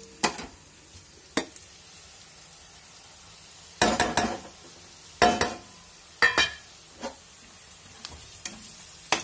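Chopped onions frying with a low, steady sizzle while ground spices are tipped in off a steel plate and stirred through with a metal spatula, which scrapes and knocks against the pan several times, loudest in quick clusters about 4, 5 and 6 seconds in.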